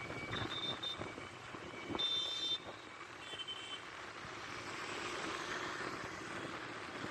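Road and wind noise of a two-wheeler riding along a city road in traffic, with short high-pitched beeps about half a second in, at two seconds and at three and a half seconds. The beep at two seconds is the loudest and cuts off sharply.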